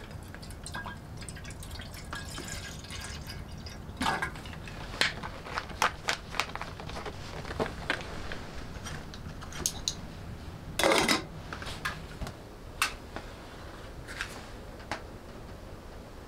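Water poured from a plastic bottle into a kettle on a wood stove, then dripping, with scattered sharp clicks and knocks and one short louder clatter about eleven seconds in.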